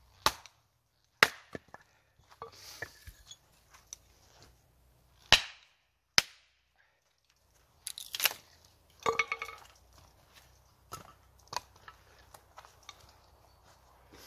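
Small axe chopping and splitting firewood on a wooden chopping block: several sharp chops into the wood, the hardest four in the first six seconds, then a quick flurry of strikes and lighter knocks.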